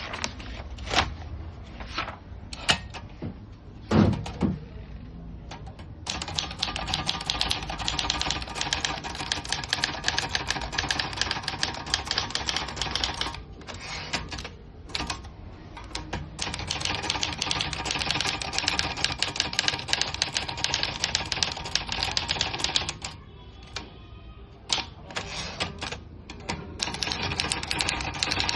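Olivetti Lettera 32 portable manual typewriter being typed on: fast runs of key and typebar clacks with short pauses between them. A few scattered clicks and one heavy thump come before the typing starts.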